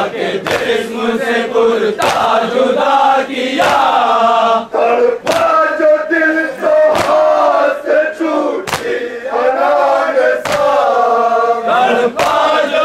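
Men's voices chanting a nauha, a Shia mourning lament, together with the rhythmic slaps of hands beating on chests (matam), the strikes coming about once a second.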